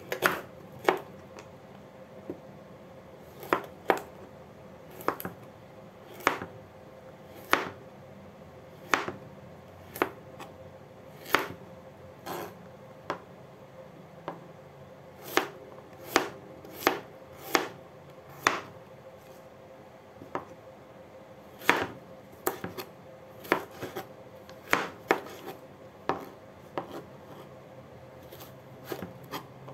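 Chef's knife cutting a peeled broccoli stalk on a cutting board: a series of sharp knocks as the blade hits the board, roughly one a second, with some coming two or three in quick succession.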